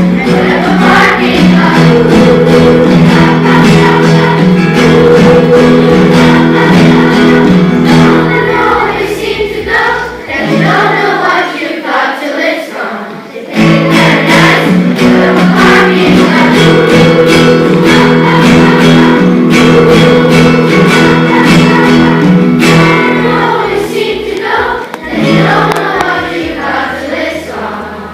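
A group of children singing a song together over instrumental accompaniment. The music thins out about ten seconds in, returns about three seconds later, and fades down near the end.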